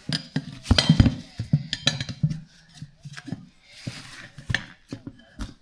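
Metal clanks and knocks of hand tools against a steel wheel rim as a small lawn-tractor tire is worked onto it, a quick cluster of hard strikes about a second in, then scattered lighter knocks.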